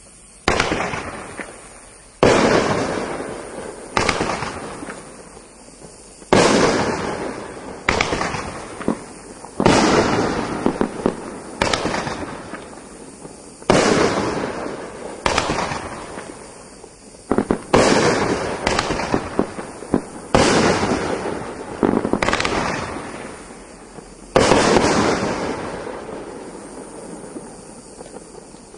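A nine-shot consumer firework rack (Winda 'LOL') firing its shells one after another: sharp launch thumps and loud aerial breaks every second or two, each bang trailing off as it fades.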